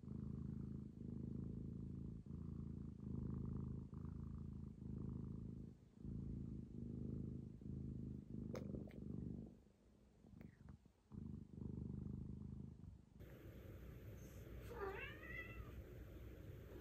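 British Shorthair cat purring close by, the purr swelling and fading with each breath about once a second, with a pause of a couple of seconds past the middle. Near the end there is a short sweeping call, the loudest single sound.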